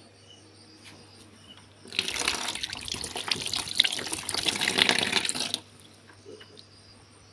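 Water gushing and splashing from a small plastic tap over a hand, starting about two seconds in and stopping suddenly after about three and a half seconds.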